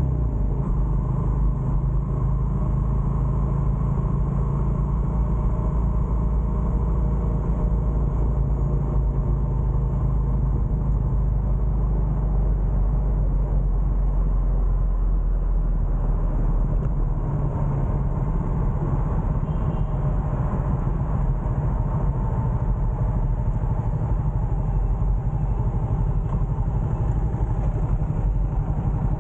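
Steady low rumble of the recording vehicle travelling along the road: engine and road noise, with little change in level.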